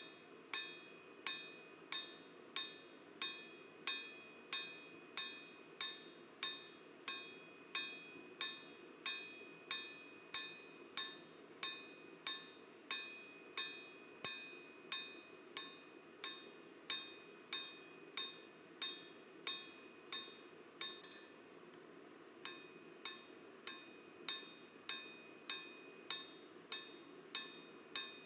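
Hand hammer striking steel on an anvil in a steady rhythm, about one and a half blows a second, each blow leaving a short metallic ring; the hammering pauses briefly about three quarters of the way through, then resumes.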